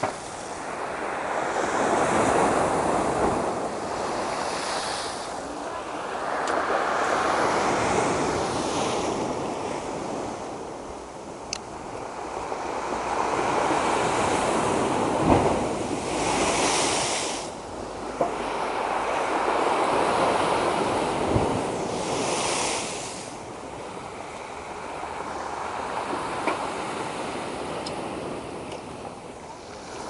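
Storm waves breaking and washing up the shore, the roar swelling and ebbing every few seconds, with wind on the microphone.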